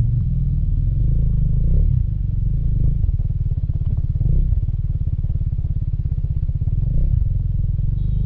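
Motorcycle engine running at low speed in a low gear, a steady pulsing rumble.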